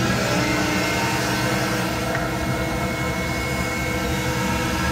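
Flow bench vacuum source running steadily, with a whooshing rush and a steady motor hum, as it draws air through a ported intake manifold during a flow test.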